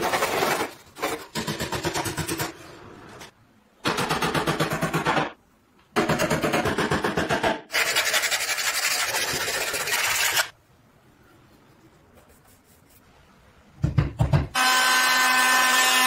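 Hand tools working bare pine in several bursts of rapid rasping strokes: a blade taking shavings, then sandpaper rubbing. After a quiet gap and a brief low thump, an electric router's motor starts up near the end with a steady whine.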